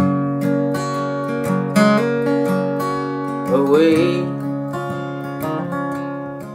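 Acoustic guitar strumming chords in an instrumental break of a solo folk-blues song, with a brief sung note about halfway through.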